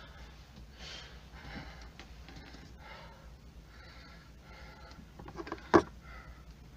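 A person breathing hard in short, noisy breaths, with one sharp knock or click near the end.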